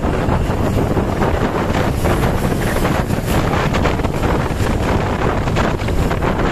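Wind buffeting the microphone: a loud, steady rumbling noise with no horn or voice in it.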